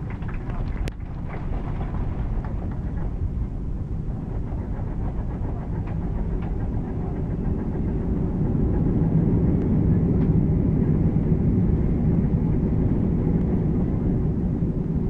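Cabin noise over the wing of an Ilyushin Il-96-300 on its landing roll: a steady rumble of the airframe rolling down the runway, with a sharp click about a second in. About halfway through, the PS-90A turbofans spool up in reverse thrust and the rumble grows louder and deeper, holding loud to near the end.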